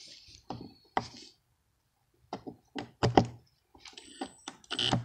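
Irregular metal clicks and knocks from hand tools being handled: a long Torx bit extension set against the engine mounting bolts of a Husqvarna 150BT backpack blower, with a few duller thuds. A faint high whine sounds briefly near the end.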